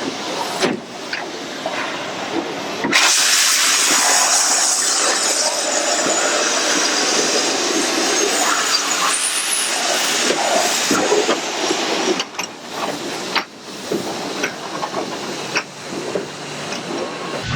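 Steam locomotive letting off steam: a loud, steady hiss starts suddenly about three seconds in and lasts about nine seconds, then gives way to quieter rail-yard noise with scattered clanks.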